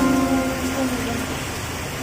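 Steady hiss of heavy rain, with background music: a chord struck at the start rings out and fades over about a second and a half.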